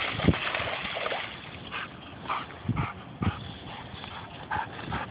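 A dog splashing through shallow pond water onto the bank, then a series of short, separate sounds from the dog as it stands over a snapping turtle, with a few dull thumps.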